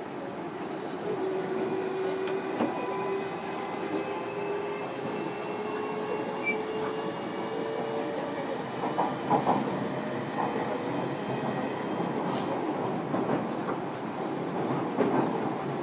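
JR Kyushu 305 series electric train running, heard from inside the motor car: a steady rumble of wheels on rail under a faint motor whine that climbs slowly in pitch over the first half. Scattered clicks of the wheels over rail joints come mostly in the second half.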